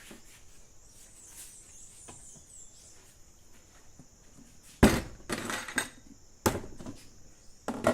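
Kitchenware clattering: several sharp knocks of pots, utensils and glass jars being handled. The first comes about halfway through after a quiet stretch, then more follow up to the end, over a faint steady high hiss.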